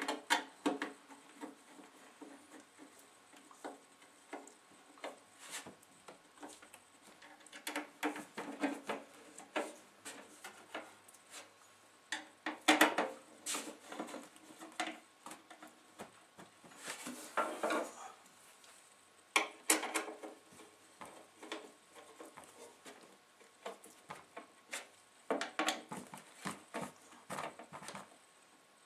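Screws being driven home with a screwdriver into the metal case of a Denon DN-D4000 twin CD player: irregular bursts of metallic clicking and scraping, with knocks from handling the case and quiet stretches between.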